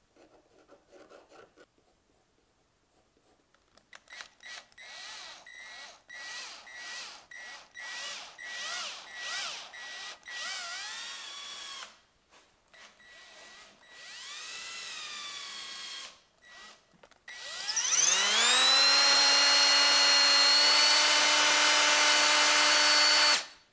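Cordless drill boring into a maple handle block: a series of short trigger pulses, about two a second, each spinning up and down. Near the end it spins up to full speed, runs steadily for about five seconds and stops abruptly.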